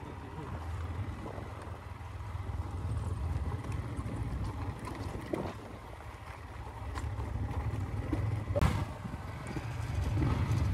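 Single motorcycle engine running at low speed while the bike rolls over a loose, rocky dirt trail. One sharp knock comes about eight and a half seconds in.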